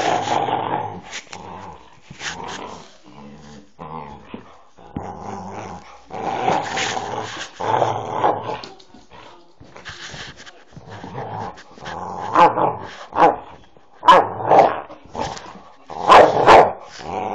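Staffordshire Bull Terrier growling and grumbling in play. The sound comes as a string of short vocal bursts that grow louder and come closer together toward the end.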